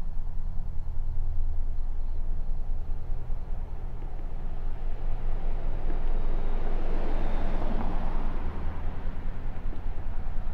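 A car passing by unseen, its noise swelling to a peak about seven seconds in and then easing off, over a steady low rumble.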